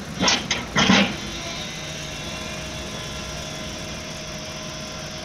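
Excavator engine idling steadily, with two short loud noises about a quarter second and one second in.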